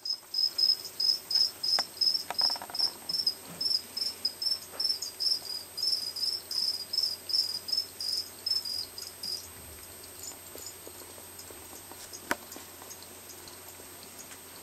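Cricket chirping: a steady run of short, high chirps, about three a second, that stops about two-thirds of the way through. A single sharp click comes near the end.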